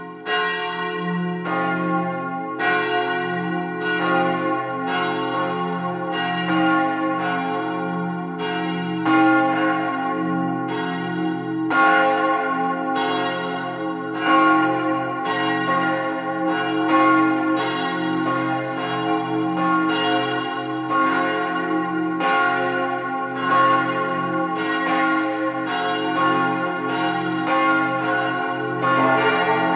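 Swinging bronze church bells from a four-bell peal cast by Rüetschi of Aarau in 1904 and tuned to an F-major chord (F A c f), ringing together. Their strokes overlap irregularly, about two a second, and the deep tones ring on between strokes.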